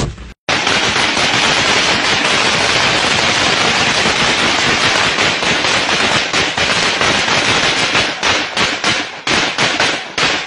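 Assault rifle firing on full automatic in long sustained bursts, the shots running together almost without a break; over the last two or three seconds the fire breaks up into shorter bursts.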